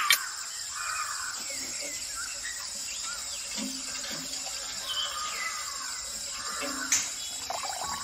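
Small birds chirping over a steady high hiss, like running water in a nature ambience.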